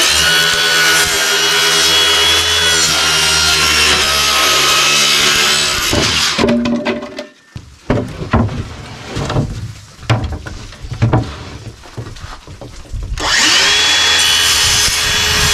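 Cordless circular saw cutting through a sheet of plywood, the motor whining steadily under load for about six seconds. Then come irregular knocks and scrapes as the cut panel is lifted and shifted, and a second cut starts a couple of seconds before the end.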